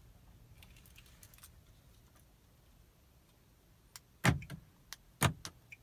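Keys clicking and jingling in a 2015 Kia Soul's ignition, with two sharp clicks about a second apart and a few lighter clicks around them. The engine does not crank, the no-start fault later traced to a failed starter.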